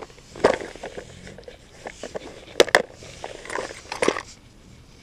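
Scattered rustles, knocks and steps of a person moving about and handling gear, with two sharp clicks a little past halfway.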